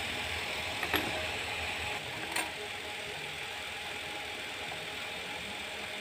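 Two light metallic clicks, about a second and a half apart, as small steel bolts with nuts and a perforated flat steel plate are handled and knocked together, over a steady background hiss.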